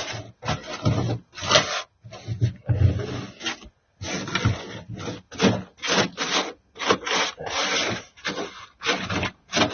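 Brittle old sound-dampening material being scraped and broken off a car's floor pan, in an uneven run of rough scraping strokes, about two a second.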